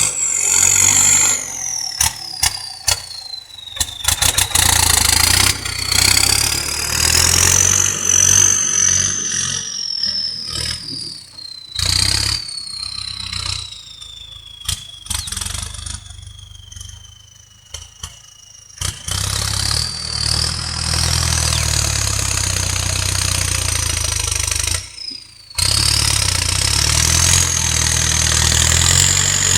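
Turbocharged Ford tractor engine running, its turbo giving a high whistle over the engine's rumble. The whistle slowly sinks as the revs fall and climbs again as the engine is revved, twice over.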